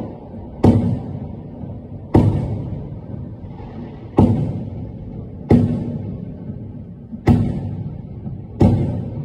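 Aerial firework shells bursting: six deep booms, one every second and a half or so, each dying away over about a second.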